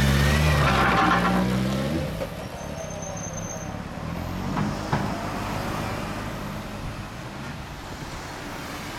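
Suzuki GSX1300R Hayabusa's inline-four engine through an SP Tadao Super Combat aftermarket exhaust, running loud and low as the bike pulls away. About two seconds in it drops off sharply, leaving fainter engine sound and road traffic that rise briefly near the middle and then fade.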